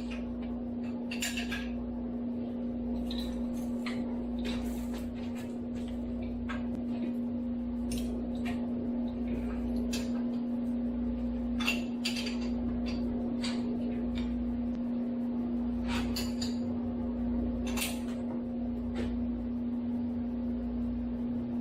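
Wrenches and hand tools clinking and tapping on metal parts while a Bridgeport milling machine is being taken apart, scattered irregular knocks over a steady hum.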